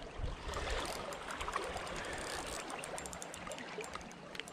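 Small waves lapping and trickling around shoreline rocks, with faint clicks from a spinning reel being wound in against a hooked fish.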